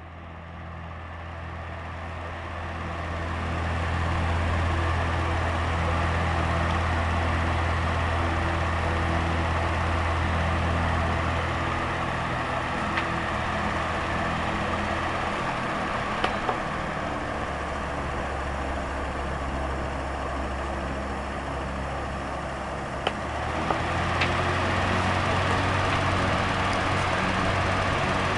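Cheap electric fan running with a swishing, rubbing noise on top of its motor hum, a sign that something inside is scraping. It builds up over the first few seconds as the fan comes up to speed, then runs steadily with a few light ticks.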